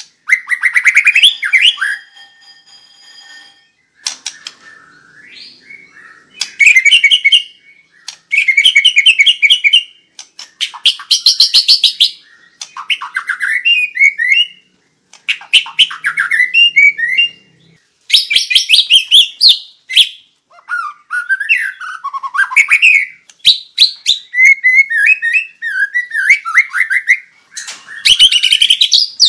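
White-rumped shama singing a long, varied song: bursts of fast trills, chattering runs and swooping whistled notes, one phrase after another with short pauses between.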